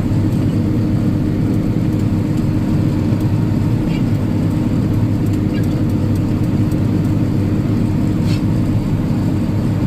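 Farm tractor's diesel engine running steadily under heavy load while pulling a disc harrow, heard from inside the cab; the tractor is working at the edge of its pulling power, its wheels prone to spinning out.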